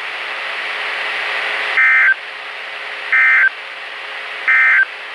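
Weather-radio static hiss with three short, shrill two-tone data bursts about a second apart: the EAS/SAME end-of-message code that closes an alert broadcast.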